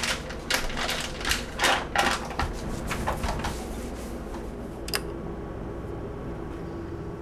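Kitchen-counter clatter: a quick run of knocks and clicks as things are handled at the counter, then a single click about five seconds in, over a steady low room hum.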